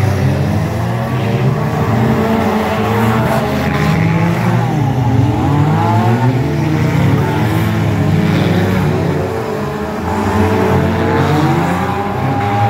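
Several demolition derby cars' engines running at once in a dirt arena, revving up and down with many overlapping pitches rising and falling.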